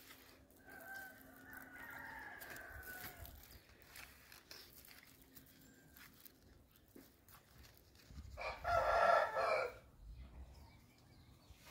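Rooster crowing: a fainter drawn-out crow in the first three seconds, then a loud crow about eight seconds in, lasting about a second and a half.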